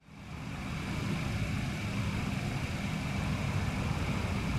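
2018 Audi Q5's 2.0-litre turbocharged four-cylinder engine idling steadily, heard from outside the car. It fades in just after the start.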